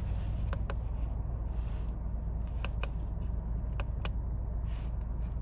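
A handful of sharp clicks, several in quick pairs, from control buttons pressed to page through the Land Rover Defender's instrument-cluster menus. Under them runs the low steady hum of the Defender's 3.0-litre straight-six idling, heard from inside the cabin.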